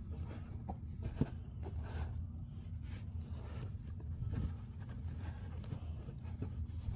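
Soft rustling and handling of fabric dust bags as sandals are taken out of them, with a single small click about a second in, over a low steady hum.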